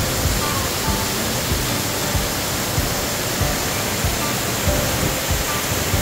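Background music with a steady low beat, about one thump every 0.6 s, under a loud, even rushing noise.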